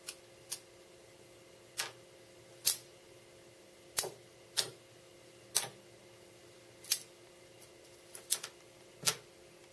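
Sharp metallic clicks, about a dozen at uneven intervals, as small steel parts (paper clips, washers, nuts) snap onto a neodymium ring-magnet and steel-washer array; several come close together near the end.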